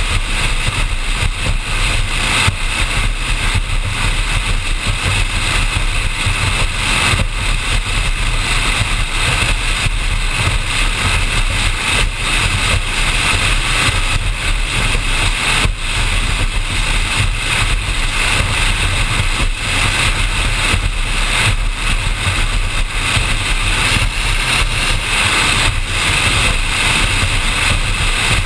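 Offshore performance powerboat running at speed: a steady low engine drone under a constant rush of wind and water noise on a deck-mounted microphone, with no change in throttle.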